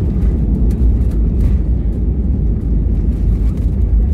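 Cabin noise inside an Airbus A320 during landing: a loud, steady low rumble of engines and airflow, with a few faint rattles.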